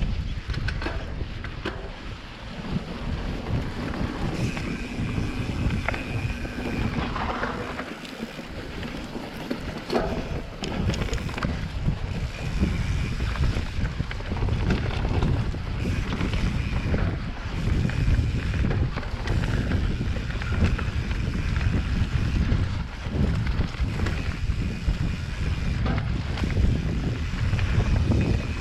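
Wind buffeting the microphone on a mountain bike ridden along a dirt trail, with scattered knocks and rattles from the bike over the ground.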